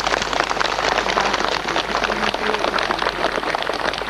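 A crowd applauding: dense, steady clapping from many hands.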